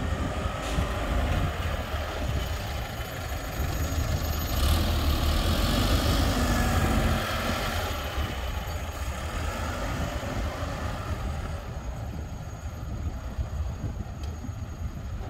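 Diesel engine of a Bomag BW 20 R pneumatic-tyred road roller running steadily as the roller compacts fresh asphalt. It grows louder for a few seconds near the middle as the roller passes close.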